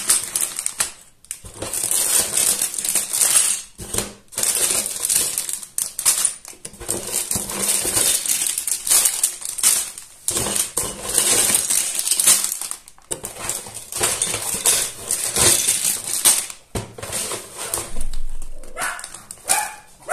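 Clear plastic bags of LEGO bricks being handled and crinkled, the loose bricks inside rattling, in irregular bursts.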